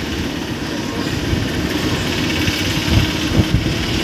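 A vehicle's engine runs while driving along a road, with a steady rumble and a few louder low thumps near the end.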